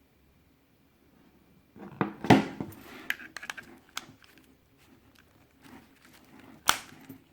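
Handling of a digital alarm bike lock. After a quiet start, a burst of rattling and knocking comes about two seconds in, followed by scattered clicks and one sharp click near the end.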